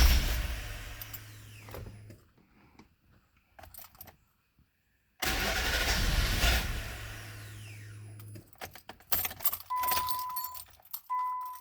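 2000 Nissan Maxima engine being cranked with the key in two separate tries, a few seconds of silence between them; the car is hard to start, which the owner suspects is a lack of fuel. Near the end, a short electronic beep sounds twice.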